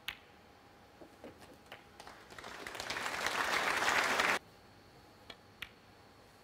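Snooker cue striking the cue ball with a sharp click, followed by a few faint ball clicks. Then audience applause for the potted black swells for about two seconds and cuts off suddenly a little over four seconds in.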